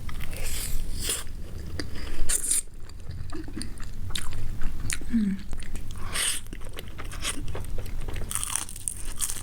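Close-miked eating: crisp crunching bites and chewing, in irregular bursts of crackle, loudest a little after two seconds and again around six and eight and a half seconds.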